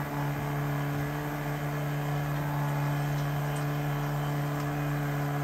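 A steady mechanical hum at one low pitch that does not change, from machinery running aboard the boat.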